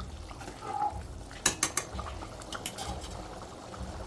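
Thick tamarind curry boiling in a kadai, with a few sharp metallic clinks of a utensil against the pan about a second and a half in and again a second later, over a low steady rumble. The curry is boiling down until it thickens and the oil separates.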